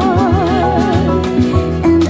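A pop song playing: a long sung note held with vibrato over a steady bass, then shorter notes near the end.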